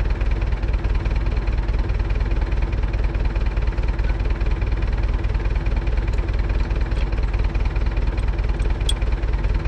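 UTB Universal 650 tractor's four-cylinder diesel engine idling steadily, with a couple of faint clicks near the end.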